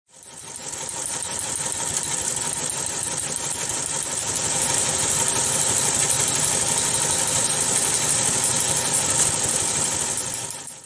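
Teletype machine clattering rapidly and steadily as it prints a news-wire page. The sound fades in at the start and fades out near the end.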